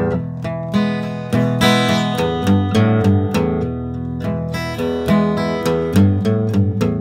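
Background music: an acoustic guitar playing a steady run of plucked notes and chords.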